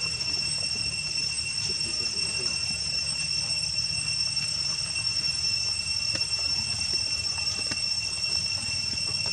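Steady, high-pitched drone of insects, unchanging in pitch, with a low rumble underneath and a few faint clicks.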